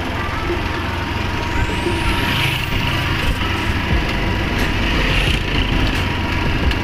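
Motorcycle engine running steadily while riding, heard from the pillion seat, with wind rumbling on the microphone.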